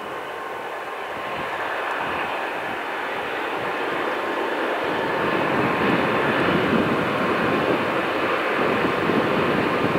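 Diesel train approaching, its rumble and rail noise growing steadily louder.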